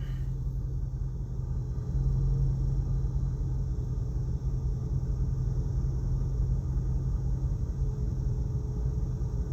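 Steady low background rumble with a deep hum, getting slightly louder about two seconds in.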